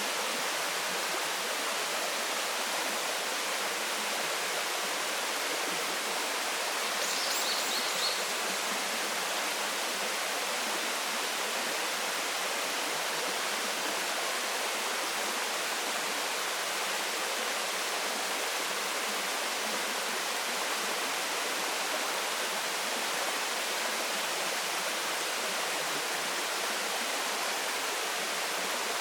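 Waterfall running steadily, an even rushing of falling water that does not change. About seven seconds in, a brief high chirping sounds over it.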